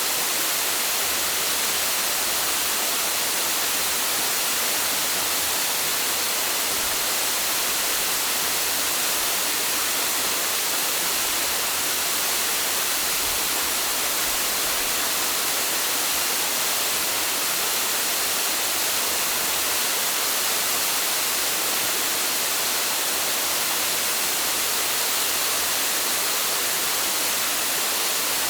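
Waterfall rushing in a steady, unbroken hiss that holds the same level throughout.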